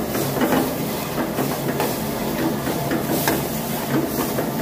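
Chicken sizzling and frying in hot oil in a large kadhai, steady throughout, with a metal ladle scraping and clinking against the pan now and then as it is stirred.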